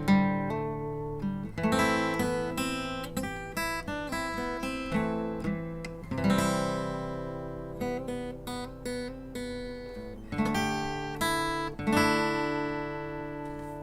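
Acoustic guitar music: picked notes and strummed chords, each ringing and dying away.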